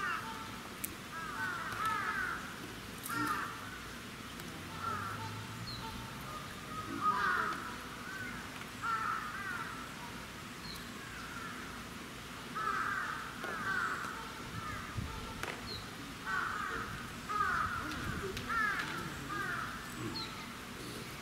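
Harsh animal calls in quick runs of several short notes, repeating every few seconds.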